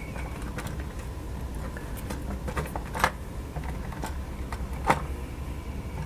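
Scattered light clicks and taps of the radio's casing parts being handled and fitted together during reassembly, the sharpest about three and five seconds in, over a steady low hum.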